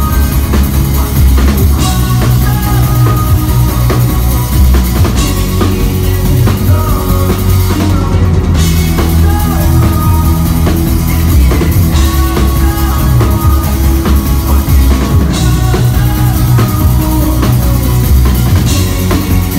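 Rock band playing live, with the drum kit and bass drum prominent in a loud, continuous passage.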